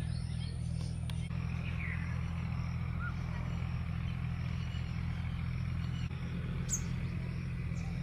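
Steady low drone, with a few faint bird chirps about two seconds in and one short, high rising chirp near the end.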